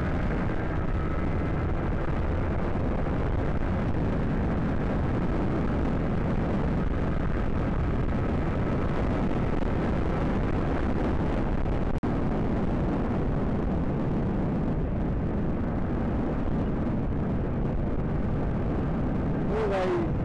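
Steady wind rumble on a motorcycle rider's helmet microphone while riding at speed, with the bike's engine running faintly underneath.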